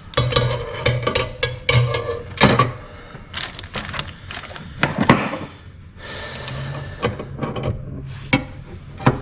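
Irregular metal knocks and clanks of tools working on a stuck motor pulley and its puller, with a steady low hum under the first couple of seconds and again near the end.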